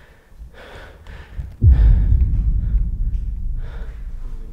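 A person breathing heavily, with a sudden low boom about a second and a half in that fades slowly over the next few seconds.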